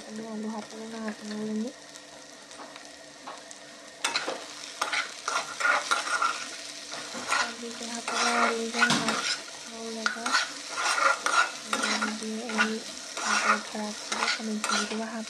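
Potato wedges and sliced onions sizzling in oil in a wok, stirred and turned with a metal spatula. The stirring starts about four seconds in, with repeated scrapes and clicks of the spatula against the pan.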